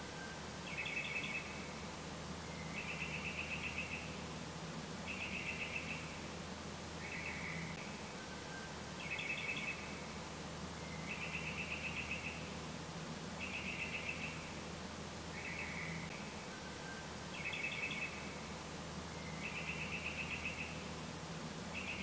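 A small animal chirping: short high chirps and rapid trills repeat about every two seconds in a regular cycle of a few phrase types, over a low steady hum.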